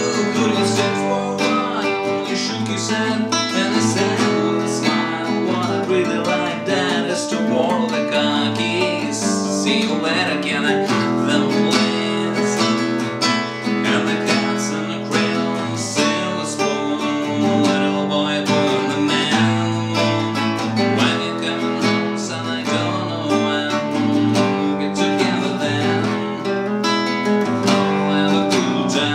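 Nylon-string classical guitar playing a steady chord accompaniment, strummed and plucked.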